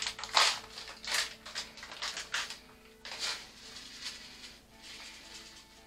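Plastic bag of black sesame seeds crinkling in about four short bursts as it is opened and handled, growing fainter over the first three seconds.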